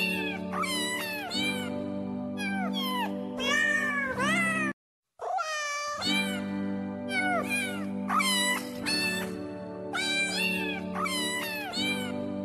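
A series of cat meows, many falling in pitch, repeated in quick succession over background music with steady low held notes. The sound cuts out completely for about half a second around five seconds in, then resumes.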